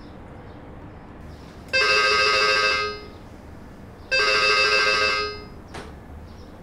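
Intercom call ringing twice, each ring about a second long with a pause of about a second and a half between them. It is the ringing signal of a call to a resident's flat that has not yet been answered.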